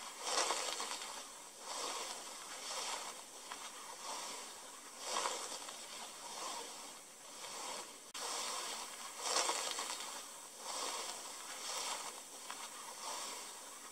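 Soft swishing, sliding noises in uneven waves, about one a second: a creature dragging itself across sand.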